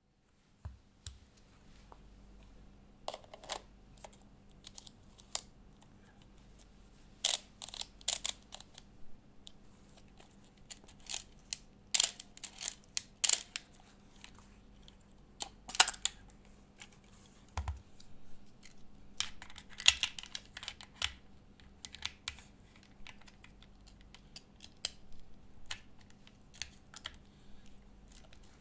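Olympus OM-1 35 mm film SLR being handled: irregular mechanical clicks, snaps and light scrapes of metal parts as the lens is mounted and film is loaded, with a few louder clatters.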